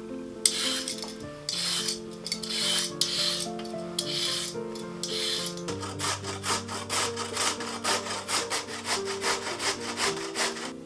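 A carrot being peeled in a few slow scraping strokes, then grated on a stainless-steel box grater in quick rasping strokes about five a second, from a little before halfway.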